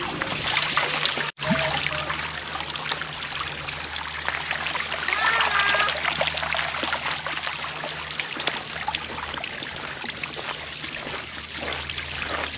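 Cold mountain water running and trickling through a children's water play area, with small splashes.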